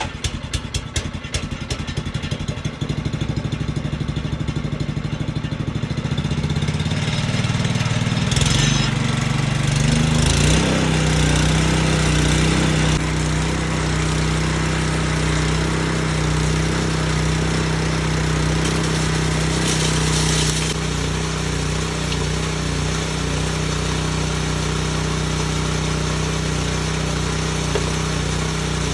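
K&M rock crusher's small engine starting up and running, its speed climbing over the first ten seconds or so, then running steadily.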